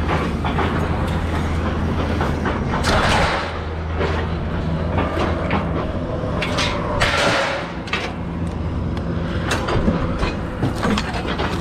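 Engine running steadily under irregular clanks, knocks and scrapes of scrap metal being handled and unloaded from a trailer.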